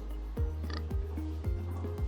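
Background music with a steady beat: a deep kick drum about twice a second over a sustained bass.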